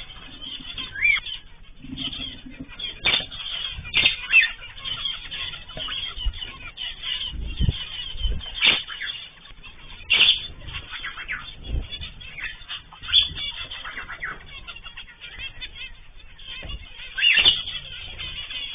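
Cage birds chirping and calling in short, sharp notes throughout, with bursts of wing flapping.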